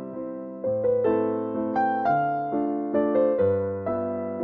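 Background piano music: notes and chords struck about every half second and left to fade.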